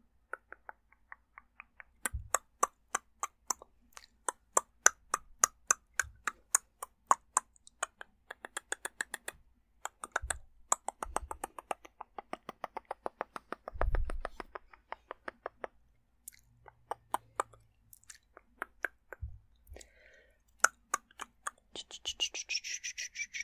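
Dry mouth sounds close to the microphone: a rapid run of lip and tongue clicks and smacks, about five or six a second, in bursts with short pauses. A few soft low thumps fall among them, and a breathy hiss comes near the end.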